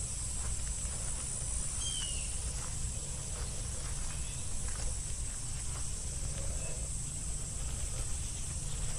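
A steady high insect drone over a low rumble of phone handling, with scattered light footsteps and rustles in grass and dry leaves. A brief bird chirp comes about two seconds in.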